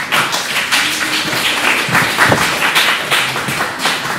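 Audience applauding: many hands clapping in a dense, steady crackle that breaks out suddenly at the end of a scene.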